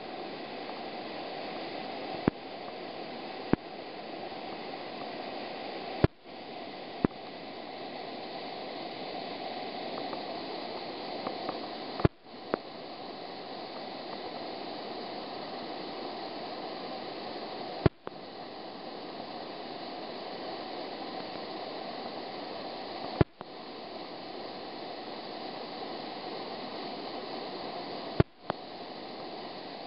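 River whitewater rushing steadily over a rocky rapid, running at about 675 cfs. Sharp clicks cut through it every few seconds, several of them followed by a brief drop in the sound.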